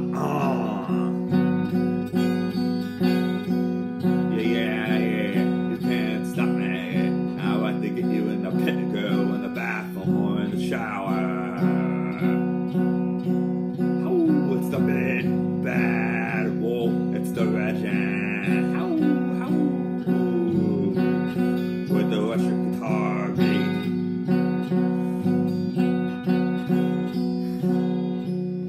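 Electric guitar strummed in a steady, repeated chord pattern, with a voice singing over it at times.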